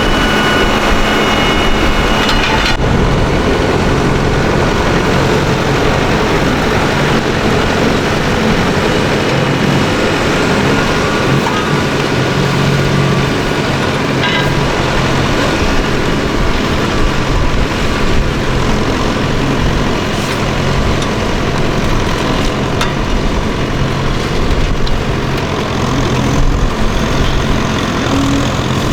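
Tractor engine running steadily, with a steady low drone; the engine note changes abruptly about three seconds in.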